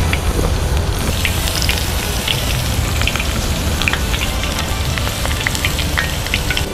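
Batter-coated Chinese toon shoots deep-frying in hot oil: a steady sizzle with many sharp crackles and pops all through.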